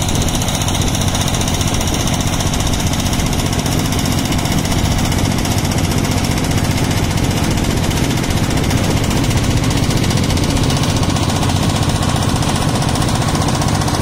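A boat's engine running steadily, heard from on board.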